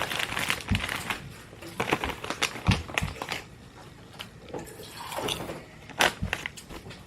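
Crinkly plastic snack bag of popcorn being opened and handled, crackling with irregular sharp clicks, plus a few dull knocks.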